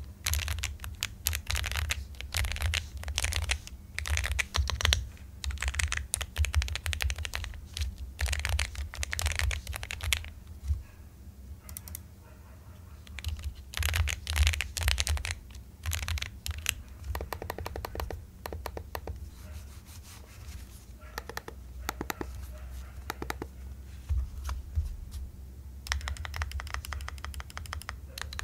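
Typing sound test on a Monka K75 aluminium 75% mechanical keyboard with factory-lubed Kailh Ice Cream linear switches. Runs of rapid keystrokes come in bursts with short pauses between them.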